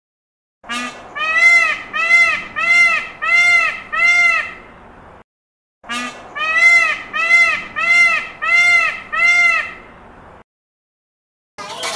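An animal calling in a quick series of six or seven short cries, each rising and falling in pitch, about two a second. The same series is heard twice, identical, with a short silence between.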